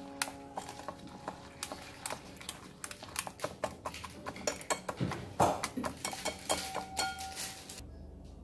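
Wire whisk clicking and scraping against a ceramic bowl while stirring pumpkin seeds through egg-white batter: a quick, irregular clatter that stops near the end.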